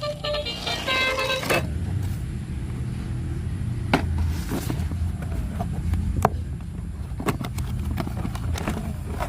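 A remote-control toy: a short electronic horn tune from its speaker stops about a second and a half in, then a steady low rumble with scattered clicks and knocks.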